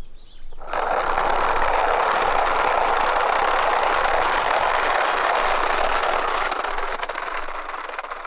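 Plastic wheels of a toy semi-truck car carrier rolling down a rough asphalt slope: a steady rolling noise that starts about a second in and fades near the end as the truck moves away.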